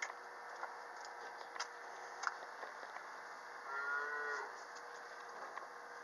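A young calf giving one short moo about four seconds in, lasting under a second.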